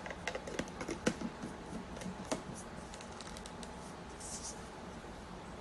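A portable electric kettle being handled: several light clicks and taps in the first couple of seconds, as the lid is tightened and the power cord plugged in, then a brief high hiss about four seconds in.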